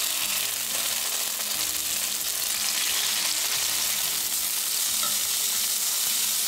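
Thinly sliced pork chops searing in hot olive oil in a frying pan, a steady sizzle as they brown.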